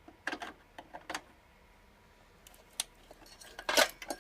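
Plastic clicks and rattles of a power cable and its connector being handled and pushed into a motherboard inside a computer case, with a louder cluster of clicks near the end.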